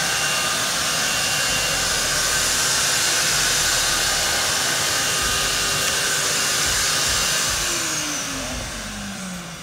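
An electric blower motor running steadily with a rushing noise and a few steady whining tones, then switched off about seven and a half seconds in, its pitch and loudness falling as it winds down.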